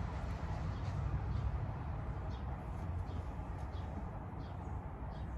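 Steady low outdoor rumble with faint bird chirps now and then.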